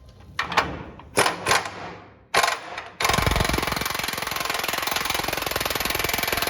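An impact wrench on the control arm bushing nuts: a few short bursts, then from about three seconds in it runs continuously with a rapid hammering rattle.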